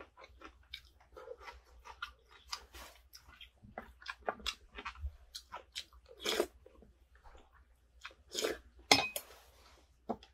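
Close-up chewing and crunching of a mouthful of crisp pan-fried thin-sliced pork belly, in irregular wet clicks and crunches. A sharp click with a short ring sounds about nine seconds in.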